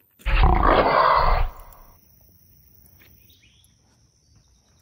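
A loud rush of noise for about a second near the start, then a faint steady high-pitched insect drone, with a short chirp about three seconds in.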